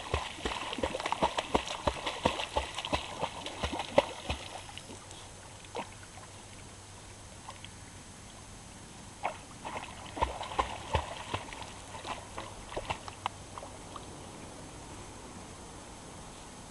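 A puppy paddling through water, her paws slapping and splashing in quick, irregular strokes. The splashing dies down about five seconds in and picks up again for a few seconds from about nine seconds in.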